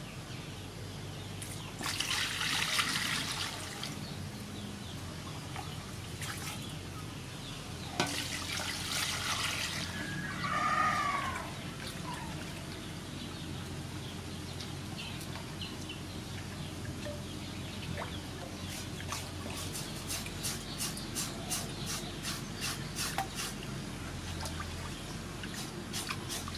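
Water splashing and trickling in an aluminium basin as a slab of pork skin is washed by hand, then a knife scraping the wet pork skin in quick strokes, about two or three a second. A bird calls once about halfway through.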